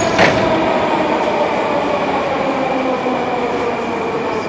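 Interior ambience of a stopped Ezh-3 Moscow Metro car at a station: a steady hum from the train under the bustle of passengers moving about, with a brief sharp click just after the start.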